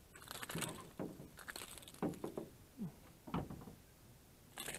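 Scattered short knocks and rustles from handling a just-landed pickerel and fishing line in a small aluminum boat, with a sharper scuffling burst near the end.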